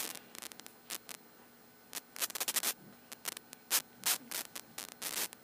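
Irregular scratchy crackling and rustling, with a dense run of quick crackles about two seconds in.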